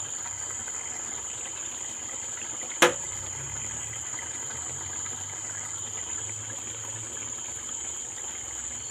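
Crickets chirring steadily at a high, even pitch, with one sharp knock about three seconds in.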